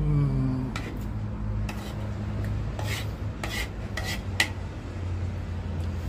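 Fork or other cutlery scraping and clicking against a plate during eating: several short, separate scrapes, over a steady low hum.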